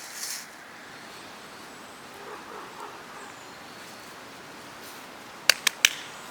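Three sharp knocks in quick succession near the end, over a quiet outdoor background, with a brief rustle at the very start.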